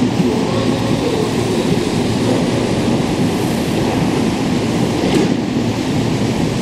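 Seibu 30000-series electric train standing at the platform, its steady equipment hum and station noise running on. A brief hiss about five seconds in, as the doors close.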